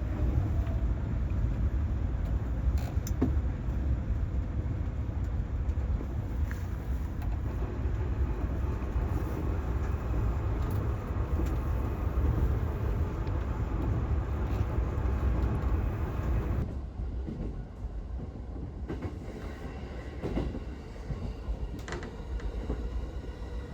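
Rumble and rail noise of a JR East train running, as heard from inside. About two-thirds of the way through it turns quieter and thinner.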